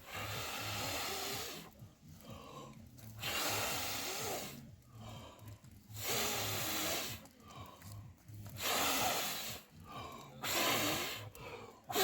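A person blowing hard, five long breaths in a row, onto a smouldering campfire of wet wood to rekindle it.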